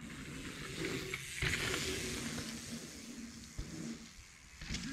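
Mountain bike rolling past on the dirt trail, the tyre noise swelling about a second and a half in and then fading, with a short knock near the end.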